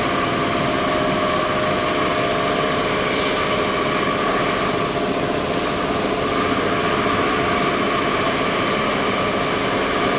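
Workshop machinery running steadily: a constant mechanical hum with a steady tone over a broad hiss.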